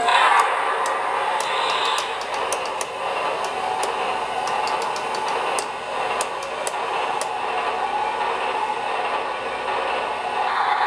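Cars of an MTH RailKing O-gauge model train rolling past on the track: a steady running whir with light, irregular clicking from the wheels over the rails.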